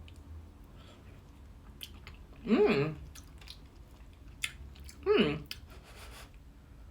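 A person eating a mouthful of fish pie close to the microphone: soft chewing with small wet mouth clicks. Two short hummed "mm" sounds, about two and a half and five seconds in, are the loudest part.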